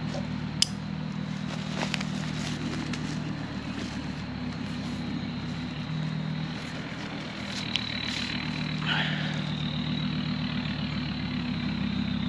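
An engine running steadily at idle, a continuous low hum, with a few light clicks or knocks.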